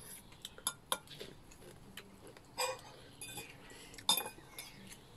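Metal forks and spoons clinking and scraping against a plate and a bowl in a few scattered short clinks, the sharpest about four seconds in.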